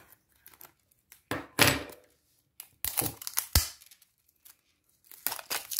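Plastic shrink-wrap film being picked at and torn off a small cardboard cream box, crinkling in several short bursts, with one sharp snap about three and a half seconds in.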